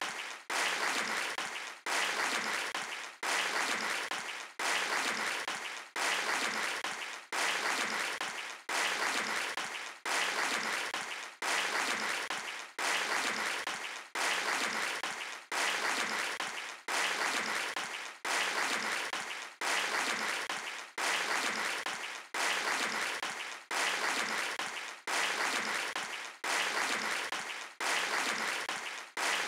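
Audience applause chopped into a short fragment that repeats over and over, about every 1.3 seconds. Each repeat starts loud, fades, and cuts off sharply: a looped or stuttering piece of audio rather than live clapping.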